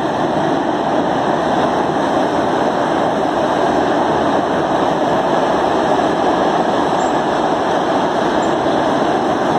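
Freight train of covered sliding-wall wagons rolling over a steel truss railway bridge: a loud, steady rumble and clatter of wheels on rails.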